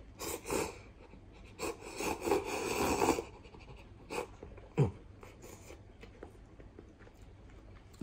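A man slurping instant cup ramen noodles off chopsticks: a short slurp about half a second in and a longer run of slurping from about 1.5 to 3 seconds, then a brief low falling grunt near 5 seconds.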